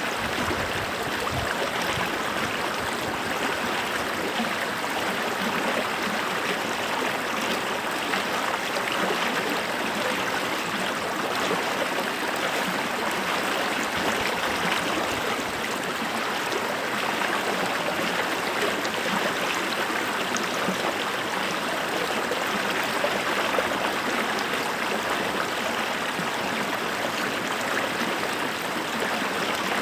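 Running water of a stream, a steady rush with a fine splashing, gurgling texture.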